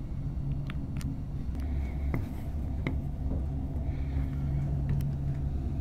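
Low, steady rumble of vehicle engines, with a few faint clicks over it.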